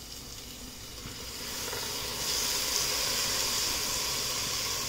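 Chopped tomatoes going into hot oil and sautéed onions in a pot, setting off a steady hissing sizzle that grows louder about two seconds in.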